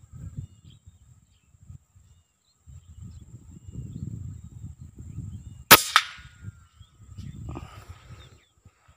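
A pellet air rifle fires a single shot at a perched spotted dove about six seconds in, a sharp crack followed a quarter second later by a second snap.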